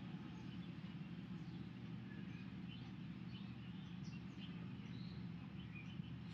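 Quiet room tone: a steady low hum with faint, scattered high chirps over it.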